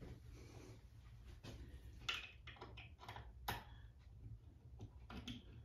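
Faint scattered clicks and ticks of a small screwdriver working the set screw on a metal towel ring's wall mount, over a low steady hum.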